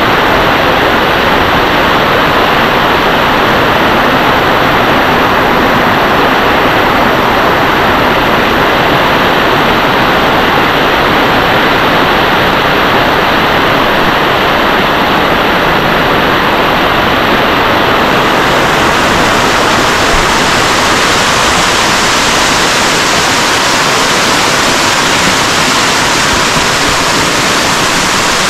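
Loud, steady rush of water. It turns hissier about two-thirds of the way through.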